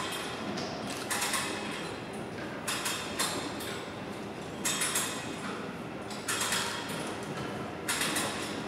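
Strv 103C's pleated flotation screen being lowered and folded down around the hull, giving a steady noisy rustle with louder swishing bursts about every second and a half.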